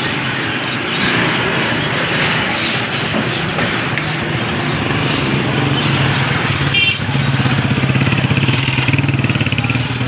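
Busy street-market din of motor traffic and people's voices, with a motorcycle-like engine running close by that grows louder from about seven seconds in.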